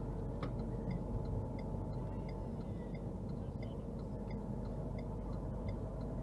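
Steady road and engine noise inside a moving car's cabin, with a faint, regular ticking a few times a second.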